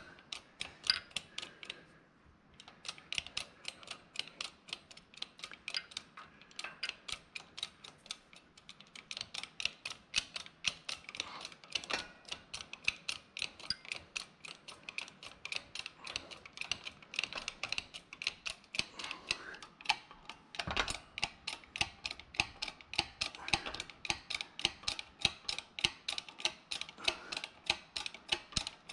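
Hydraulic shop press with a 12-ton bottle jack being pumped, clicking in a fast, even rhythm as it presses a drawn-cup needle roller bearing into an NP435 transmission case. There is one heavier knock about two-thirds of the way through.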